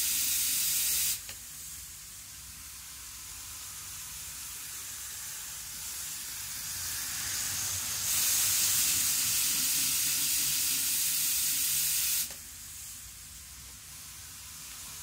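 N-gauge 783 series model train running round the track: a steady high hissing whir of motor and wheels on rail. It is loud as the train passes close by at the start, drops sharply about a second in, builds slowly, and is loud again from about eight seconds in before dropping off sharply about four seconds later.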